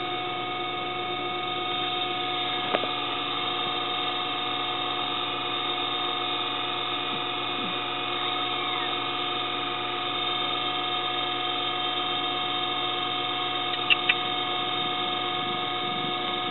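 A steady electrical or mechanical hum made of several held tones, with a single click about three seconds in and two quick clicks near the end.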